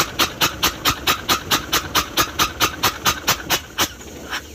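Nissan FE6 six-cylinder diesel running with its number-one injector removed, giving a rhythmic chuffing puff about four to five times a second that stops about four seconds in. With that injector out, the back compression (crankcase blow-by) is gone, which points to cylinder number one as the fault.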